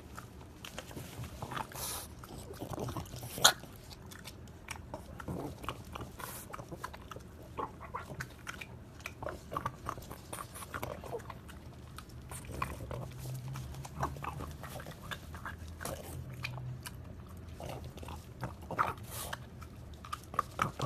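A dog chewing, with irregular crunches and clicks and one sharper click about three and a half seconds in.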